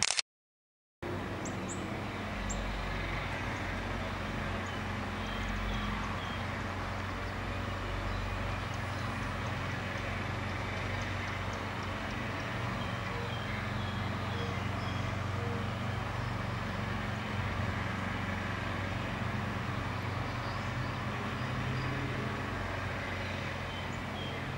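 Steady low outdoor background hum and rumble, with faint, scattered high chirps. A click and a gap of total silence come right at the start.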